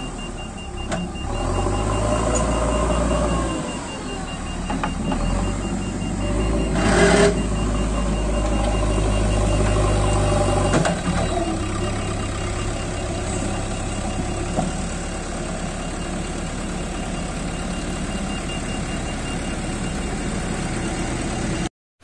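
JCB 3DX backhoe loader's diesel engine running under load, its sound rising and falling as the machine works, with a short burst of noise about seven seconds in. It cuts off suddenly just before the end.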